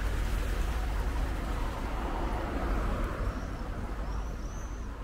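A car driving past on the road, its tyre and engine noise swelling about two seconds in and then fading, over a steady low rumble. A bird chirps twice near the end.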